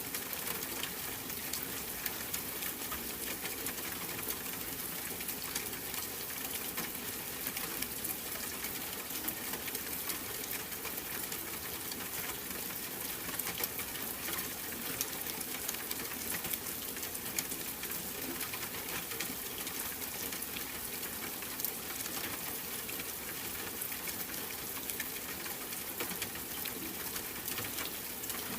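Steady rain: an even hiss dotted with many small, sharp drop ticks.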